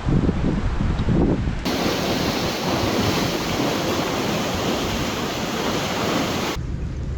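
Wind buffeting the microphone in gusts over a low rumble. About a second and a half in, it cuts abruptly to a steady, loud rushing hiss, then cuts back to the low rumble near the end.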